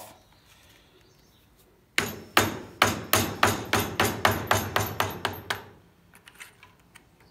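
A hammer taps a steel punch set against the jam nut on a COOT ATV axle's threaded bearing adjuster, knocking it loose so the nut can be backed off. The sharp metal strikes start about two seconds in, come about four a second, and stop a little past halfway.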